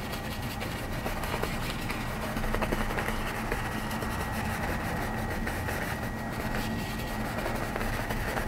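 Steady low hum with hiss, and a thin high-pitched whine held throughout: background room and recording noise.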